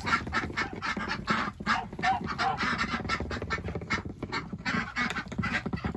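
A flock of geese and ducks calling, with honks and quacks over a busy run of short clicks and rustles.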